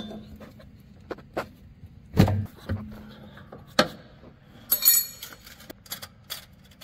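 Scattered metallic clicks and knocks of a spanner wrench working the threaded spring collar on a coilover, with a brief metallic jingling rattle about five seconds in.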